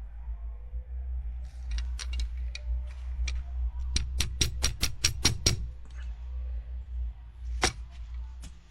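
A string of sharp clicks over a low steady hum: a few scattered ones, then a quick run of about eight near the middle, and one more near the end.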